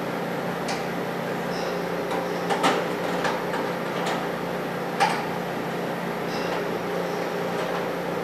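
Light clicks and knocks of things being handled on a kitchen counter, several spread out and the loudest about five seconds in, over a steady low hum.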